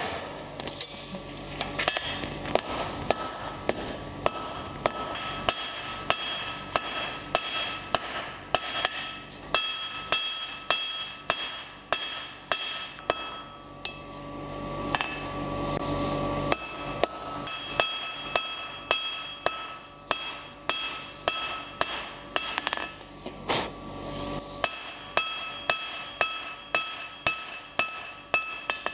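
Hand hammer striking a hot steel bar on an anvil at a steady rhythm of about two blows a second, each blow followed by a bright ring from the anvil. The bar is being drawn from square down to an octagonal taper. The hammering pauses briefly twice.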